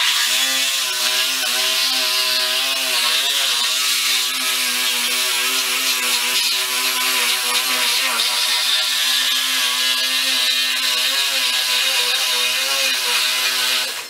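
Reciprocating saw running steadily while cutting through a walk-in refrigerator wall, its motor whine wavering slightly under load over a harsh, hissing cutting noise.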